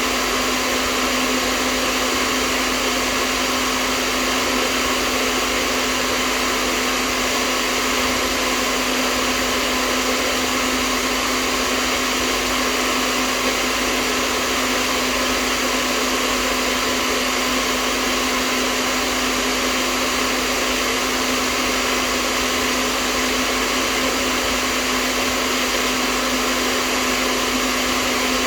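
Hair dryer running steadily, an even airy whir with a constant low hum from its motor.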